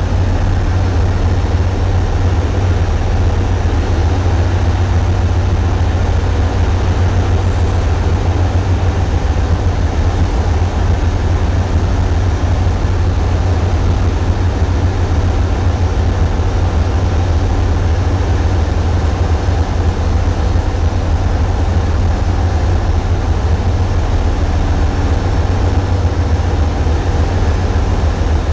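Tugboat's diesel engine running steadily while the tug works on a towline, heard as a loud, heavy low rumble. The camera's mount shakes with the hull, so the vibration drowns out detail.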